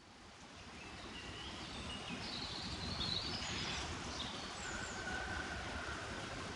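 Outdoor ambience of several birds chirping and calling over a steady background noise, fading in over the first second or two.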